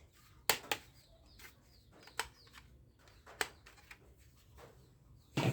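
A few sharp, separate clicks and taps of hard plastic toy guns being handled, a second or so apart, with a louder knock near the end.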